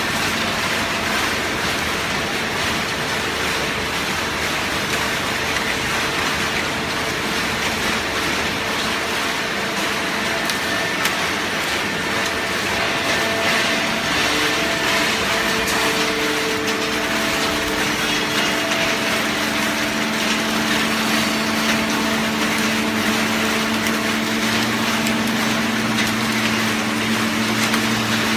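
A waste cardboard baler machine running: a loud, steady mechanical noise with a hum. A deeper hum comes in about twenty seconds in and is stronger near the end.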